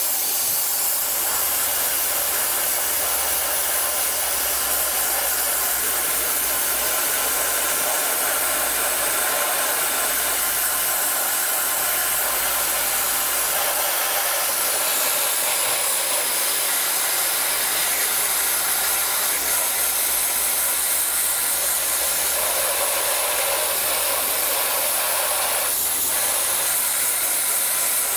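Dry ice blasting gun firing a steady, unbroken hissing jet of compressed air and dry ice pellets against a car's underbody, stripping off grime.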